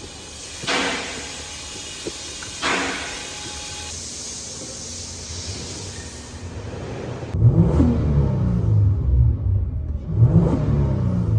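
Car engine revving hard twice in the second half, each rev rising in pitch. Before that there is a steady hiss with two short whooshes.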